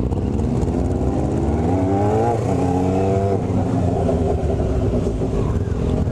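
Honda CB500 motorcycle engine pulling away: the revs rise, drop at a gear change a little over two seconds in, rise again and drop at a second shift a little over three seconds in, then settle into steady running.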